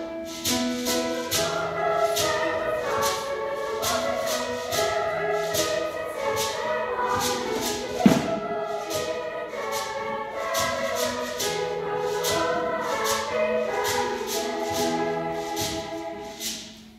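Youth choir singing in parts with piano accompaniment, over a steady shaken percussion rhythm like a tambourine or shaker. A single sharp thump about halfway through.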